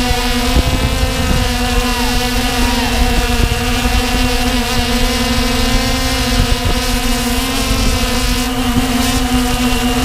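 Walkera Tali H500 hexacopter's electric motors and propellers running in flight, a steady whine of several tones over a low rumble of prop wash buffeting the on-board microphone.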